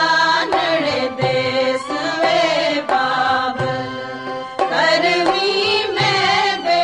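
Background music: a melodic Indian song track with sustained, gliding notes.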